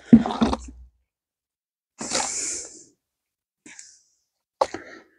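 Short handling noises while working plants and soil in a raised bed: a knock and rustle at the start, a hissing rustle about two seconds in, and a sharp click near the end.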